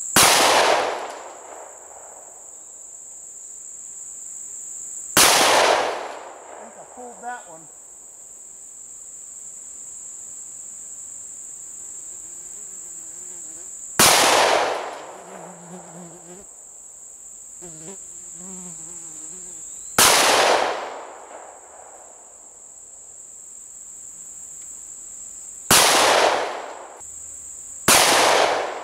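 Six 12-gauge shots from a Franchi SPAS-12 shotgun fired in semi-automatic mode, spaced several seconds apart with the last two about two seconds apart, each ringing out for about a second. Insects buzz steadily and high-pitched throughout.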